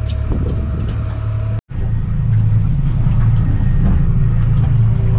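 Boat's outboard motor running steadily, a low even hum with water and wind noise over it. The sound cuts out for a split second about one and a half seconds in, then returns a little louder.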